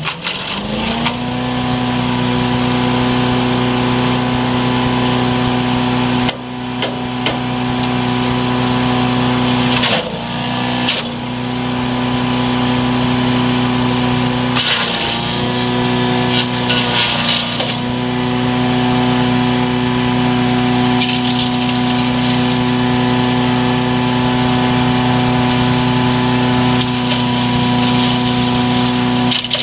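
Predator 212cc single-cylinder gas engine on a Harbor Freight 3-inch wood chipper, running at steady high speed after climbing up to speed about a second in. Its pitch dips briefly several times as branches go through, each time with a burst of cracking and rattling as the wood is chipped.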